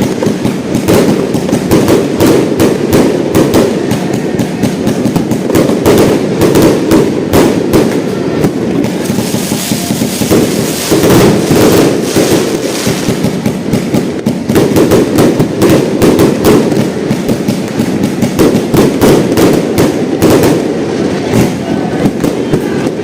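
A 188-shot fireworks cake firing a rapid, unbroken barrage of shots and bursts, several a second.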